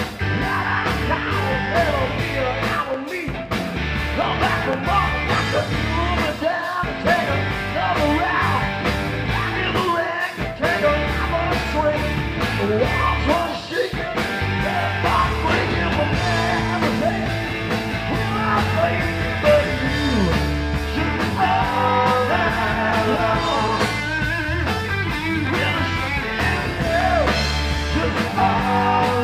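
Live rock band playing: electric guitar over bass guitar and a drum kit keeping a steady beat.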